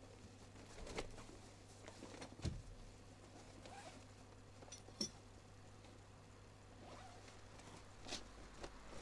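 Faint, scattered knocks and clicks of handling, the sharpest about two and a half and five seconds in, over a steady low hum.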